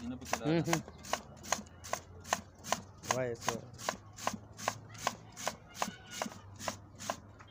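Carrots being grated by hand on a metal grater resting on a plate: a steady, rhythmic rasping stroke about two and a half times a second, stopping just before the end.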